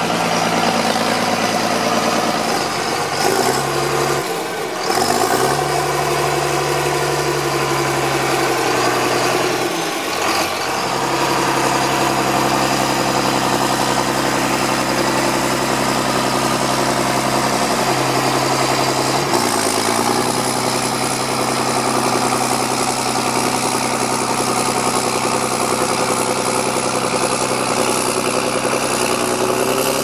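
John Deere 4755's six-cylinder diesel engine running steadily while pulling a five-furrow plough, its note dipping and shifting a few times and starting to rise near the end.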